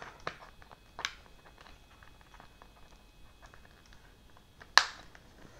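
Faint handling noises and small clicks of hands fitting an elevon control link onto a foam RC flying wing, with one sharper, louder click about five seconds in.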